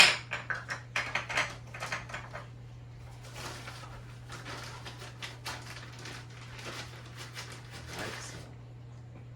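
Kitchen rummaging: a sharp knock, then a run of clatters and knocks of utensils and cabinet doors or drawers, with rustling that dies away near the end, over a steady low hum.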